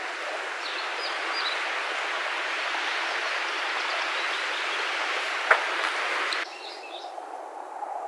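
Outdoor ambience: a steady rushing noise with a few short, high bird chirps, and one sharp click about five and a half seconds in. The rushing cuts off abruptly about six and a half seconds in, leaving a quieter background with faint bird calls.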